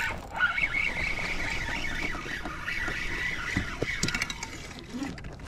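Fishing reel cranked steadily while reeling in a hooked fish, a high, even whine that fades about three and a half seconds in, followed by a few light knocks.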